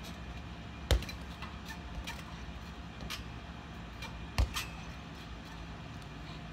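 Two sharp thumps about three and a half seconds apart, over a steady low hum with faint ticks between.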